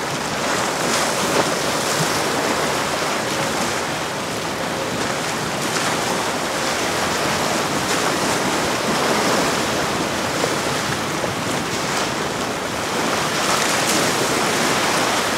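Steady rush of choppy water and wind.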